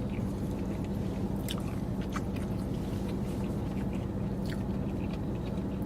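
A man chewing food, with scattered faint mouth clicks and smacks over a steady low hum.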